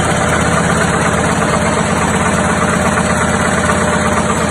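A machine running steadily with a fast, even clatter over a low hum.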